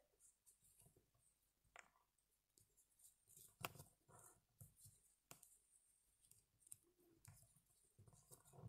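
Faint, scattered ticks and rustles of hands tying off a knot in sewing thread on a felt piece.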